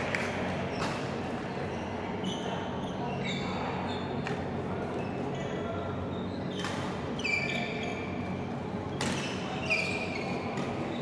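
Badminton hall sound: rackets smacking shuttlecocks, about four sharp hits a couple of seconds apart, with short high shoe squeaks on the court mats. Under it runs a steady low hum of the hall and distant voices.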